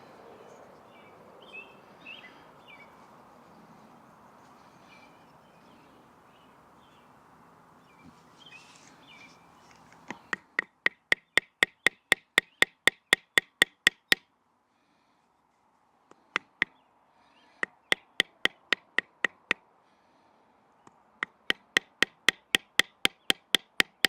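A wooden baton striking the spine of a Victorinox Ranger Swiss Army knife blade to split a stick of wood (batoning). There are quick runs of sharp knocks, about four a second, in three bursts with short pauses, all in the second half.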